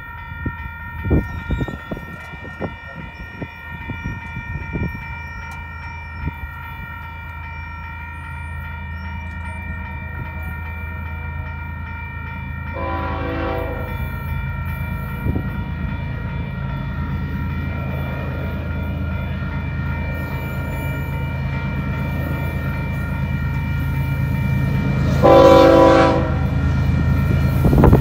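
BNSF freight train's diesel locomotives approaching a grade crossing, their low rumble growing steadily louder, with two horn blasts: a short one about halfway through and a louder one near the end. A crossing bell rings steadily underneath, fading as the train grows louder.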